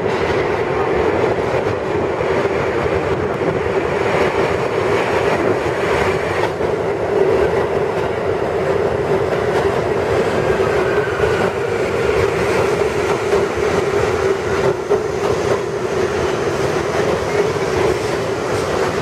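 1964 Budd R32 stainless-steel subway cars running along the platform at speed: a steady loud rumble of steel wheels on rail, with a continuous clickety-clack of wheels crossing rail joints.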